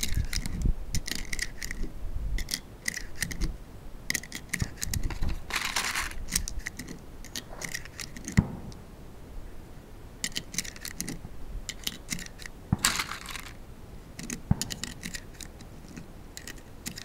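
Light metallic clicks and clinks of handguns and cartridges being handled, with two brief scraping rustles and one sharper knock a little under halfway through.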